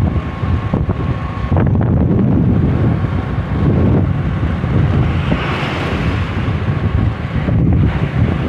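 Wind buffeting the microphone on a moving motorcycle, over a steady low rumble of engine and road noise, with a brief louder hiss about halfway through.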